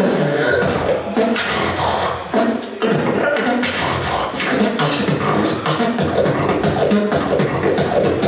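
Beatboxing through a microphone: a continuous run of vocal bass, drum-like percussive strikes and pitched vocal lines.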